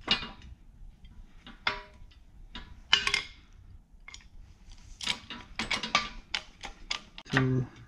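Hydraulic bottle-jack shop press being pumped by its handle to press a U-joint bearing cap into a driveshaft yoke: an irregular run of metallic clicks and clanks, some ringing briefly, with a short pitched sound near the end.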